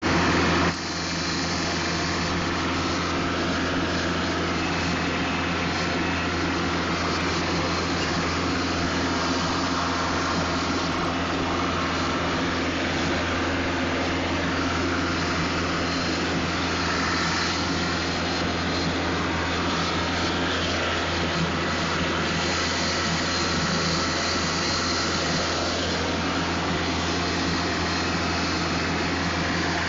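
John Deere 4500 compact tractor's diesel engine running steadily while cutting grass, a constant drone with a low hum under a broad rushing noise. It is a little louder for the first split second.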